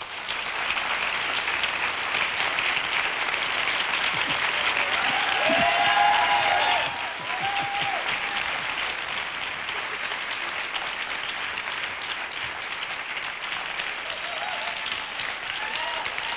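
Studio audience applauding a guest's entrance: sustained clapping that swells to its loudest about six seconds in, then eases slightly and carries on.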